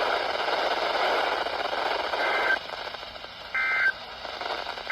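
Radio hiss that cuts off, then short warbling two-tone data bursts of the Emergency Alert System's SAME code, about a second and a half apart. These are the end-of-message tones closing a flash flood warning broadcast.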